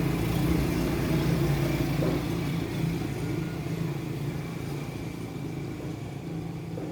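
Strong wind rumbling on the microphone, easing off over the last few seconds.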